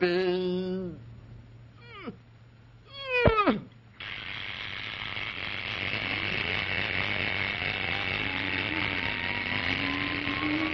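Cartoon sound effects: a held voice note, then two quick downward-swooping whistle tones. About four seconds in, a steady rushing hiss starts suddenly, with thin whistling tones slowly rising beneath it as the giant magnet pulls the ground and buildings up off the Earth.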